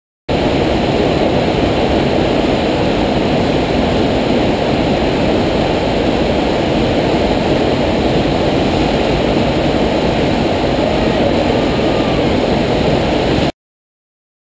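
Steady, loud rushing of the FlowBoarder's pumped sheet of water pouring up the ride surface; it starts suddenly just after the beginning and cuts off suddenly near the end.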